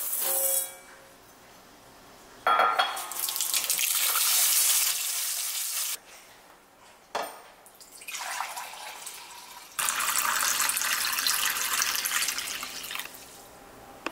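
Kitchen tap water running and splashing into a bowl of rice as it is rinsed, in two long spells. In between, cloudy rice-washing water is poured into a glass measuring jug.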